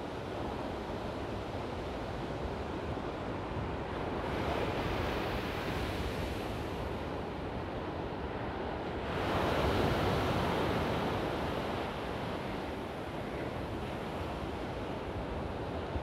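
Heavy surf breaking against a concrete breakwater: a steady wash of crashing water that swells louder about four seconds in and again, more strongly, around nine seconds. Wind rumbles on the microphone underneath.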